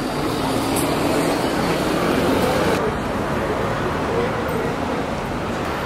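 Busy city street ambience: steady road traffic noise, with passers-by talking.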